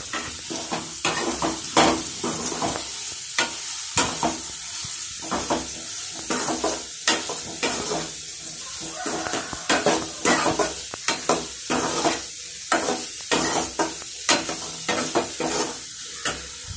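Soya chunks sizzling in hot oil in a metal kadai while a metal slotted spatula stirs them, scraping and clinking against the pan many times at an irregular pace over a steady hiss of frying.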